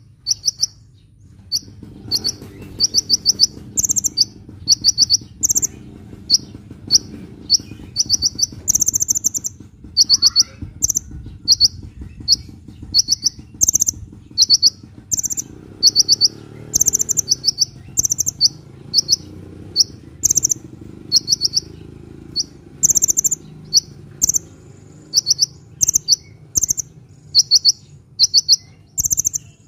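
Sunbird (Indonesian 'kolibri') singing: short, rapid, high trills of ticking notes, repeated about once a second, with a faint low hum underneath from about two seconds in.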